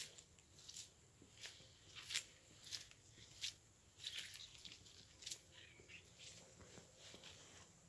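Faint footsteps at a steady walking pace on wet, muddy ground with dead leaves.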